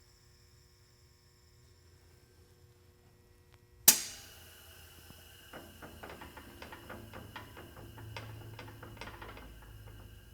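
Uhling HP3000 pneumatic case clamp operating: after a low hum, a sudden loud burst of air about four seconds in, then a run of irregular clicks and knocks over a low rumble as the clamp mechanism moves.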